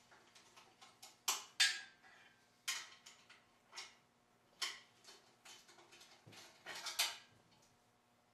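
Irregular metal clinks and knocks as an engine hanging on a hoist chain is worked onto an engine stand's mounting head. Several clanks are louder than the rest, and one about a second and a half in rings briefly.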